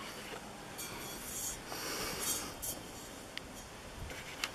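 Close rustling and handling noise, with soft hissing puffs between about one and three seconds in and two short clicks near the end.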